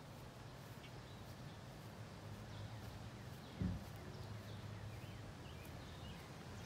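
Quiet outdoor ambience: a faint steady low hum with scattered faint bird chirps, and a single low thump about three and a half seconds in.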